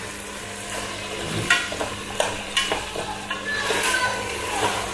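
Metal spoon stirring browned oxtail in a pressure-cooker pot on the stove: the spoon scrapes through the meat and clinks against the pot's side several times, over a light sizzle.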